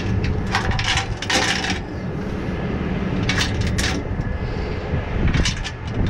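Tow truck engine running steadily under repeated bursts of metallic clinking and rattling from tow chains and hooks being handled while the box truck is secured for towing.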